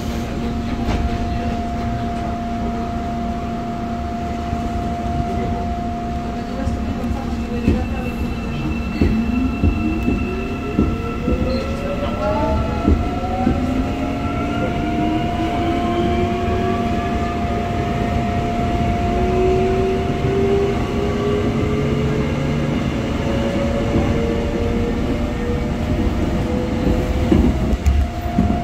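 Busan Metro 1000-series electric train, with IGBT VVVF inverter drive, heard from inside the car as it pulls away from a station. A steady electrical hum gives way, about nine seconds in, to the traction inverter and motor whine rising in pitch in several tones as the train accelerates. Occasional wheel knocks come near the end.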